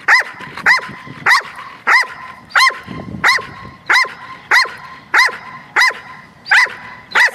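Belgian Malinois barking on cue at a ball toy: a steady run of about twelve barks, a little under two a second.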